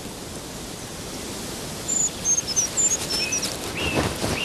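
Forest ambience: a steady background hiss with small birds giving short, high, thin chirps from about two seconds in, and a brief rustle near the end.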